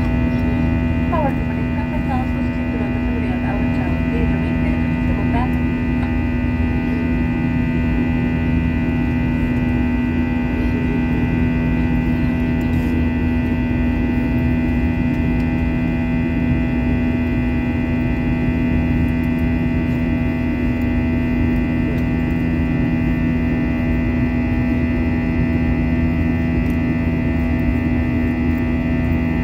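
Airbus A321 cabin noise in the climb after takeoff: the jet engines and airflow make a steady drone, with a strong constant hum and several fixed tones over a low rumble.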